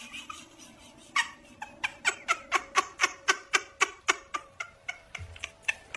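A small animal squeaking in a quick run of short calls, about three a second, starting about a second in.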